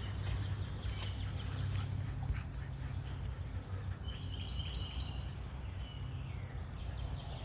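Insects buzzing steadily on one high tone, with scattered light clicks and a low rumble underneath.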